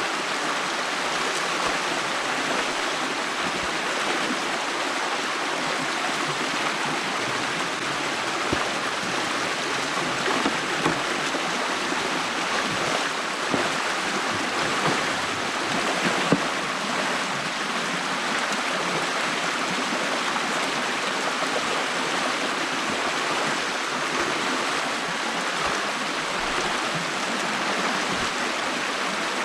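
Stream water rushing steadily through a breach in a beaver dam, with a few brief louder knocks or splashes partway through.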